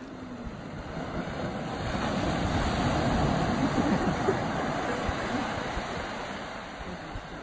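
Ocean surf breaking and washing up the beach: a steady rush that swells to its loudest about halfway through, then slowly ebbs.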